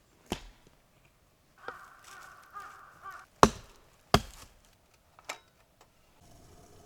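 Sharp chopping strikes, four in all, spread over a few seconds. Between the first and second strikes comes a pitched call in a few short runs, like a crow cawing.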